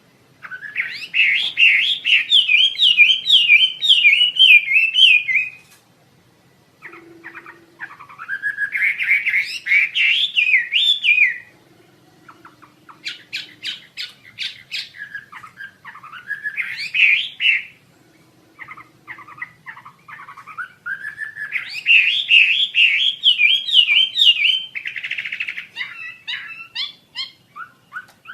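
A Wambi Asia songbird singing. It gives loud phrases of rapid, wavering warbles, each a few seconds long, separated by shorter chirps and clipped notes.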